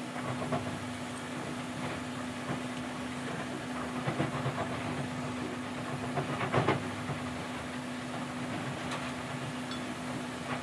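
A few metal clinks and knocks as a tapered roller bearing is set down into a wheel loader's wheel hub, the loudest about six and a half seconds in, over a steady low hum.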